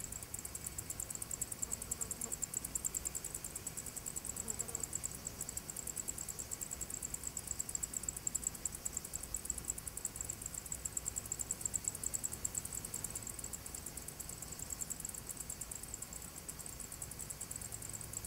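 Insects chirring steadily, a rapid pulsing high-pitched buzz that carries on without a break, over a faint low hum.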